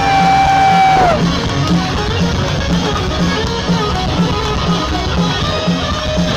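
Loud live rock music from a stadium sound system: electric guitar and drums on a steady beat, with a held, bent lead note that slides down about a second in.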